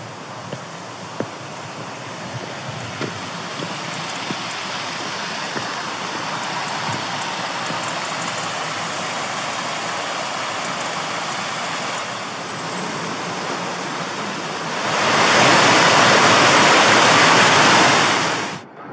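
Rushing water: a steady rush that builds over the first few seconds as water spills over canal lock gates. About three-quarters of the way in it gives way to a much louder rush of white water in a river, which cuts off abruptly just before the end. A few footsteps on stone paving at the start.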